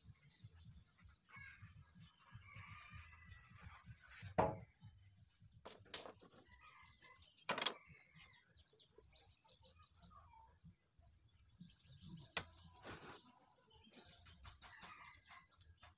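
A few sharp wooden knocks as timber strips are laid down and shifted on a wooden workbench, the loudest about four and a half seconds in. Behind them, and quieter, a rooster crows and small birds chirp.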